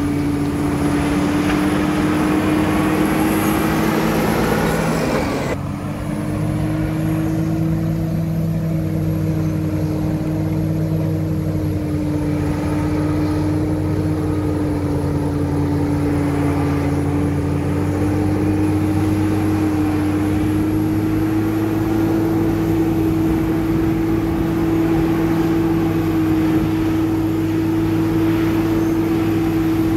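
Caterpillar D7 bulldozer's diesel engine running steadily under work. A noisier, louder stretch over the first five seconds cuts off abruptly, and the engine note carries on.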